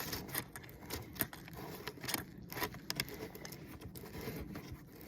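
Irregular light clicks and small metallic rattles from screws, bolts and hand tools being handled while parts are mounted on an ATV.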